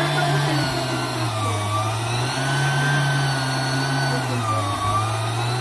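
Electric meat grinder motor running with a steady hum, its pitch sagging twice and coming back up.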